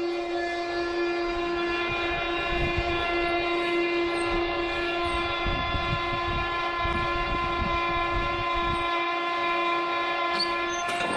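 Foundry sand muller running, a steady machine whine with several tones stacked over one another and an uneven low rumble underneath for much of the time, while it mixes moulding sand.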